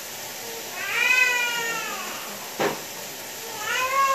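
Two drawn-out, arching hunger cries, one about a second in and another near the end, from a hungry young one waiting for its bottle of milk, with a single sharp click between them.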